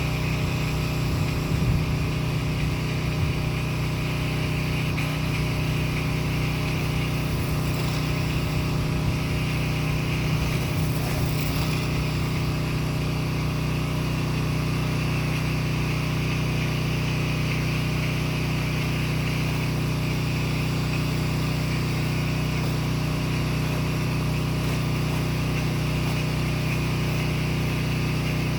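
Pressure washer's engine and pump running steadily, with a steady hiss above the engine note.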